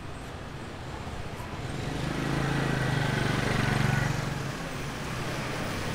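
A motor vehicle passing by: its engine hum swells from about a second and a half in and fades away after about four seconds, over steady street background noise.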